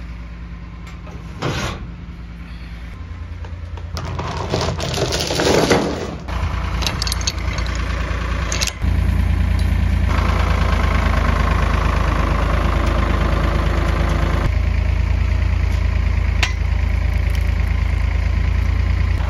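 Farm tractor engine running as it drives, the throttle opened in steps until it runs steady and louder from about nine seconds in. A few clanks and some rattling come over it in the first half.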